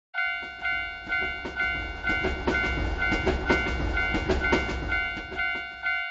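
Japanese railroad crossing bell ringing 'kan-kan' about twice a second while a train passes, its low rumble and rapid wheel clatter running under the bell and cutting off just before the end.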